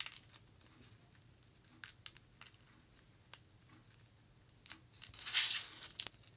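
Dry, papery petals of a preserved rose crackling and tearing as they are pulled off by hand: scattered light clicks, then a louder crinkling rustle about five seconds in.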